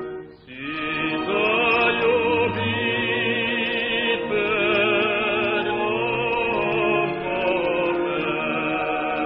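Film soundtrack music: voices singing together in long held notes that waver in pitch. The music fades briefly at the start and swells back in about a second in.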